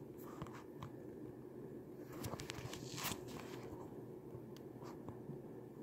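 Faint handling noise from a phone camera being set in place: soft rustles, scrapes and small clicks of fingers against the phone near its microphone, over a low steady room hum.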